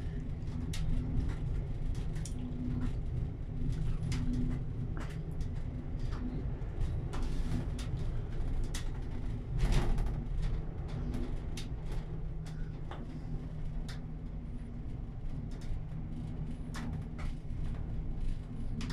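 Steady low rumble inside an enclosed cable car cabin travelling along its cable, with a faint pulsing hum and scattered clicks and rattles from the cabin. There is a louder knock about ten seconds in.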